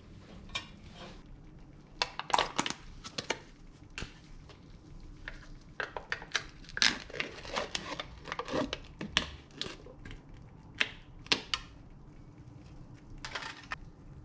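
Cookware and utensils clattering in sharp, irregular knocks and clicks as a pot with a ladle in it is moved and set down and a plastic tub is handled. Near the end a spatula knocks and scrapes against the tub over the frying pan.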